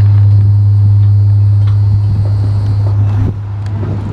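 A loud, steady low hum that drops away about three seconds in.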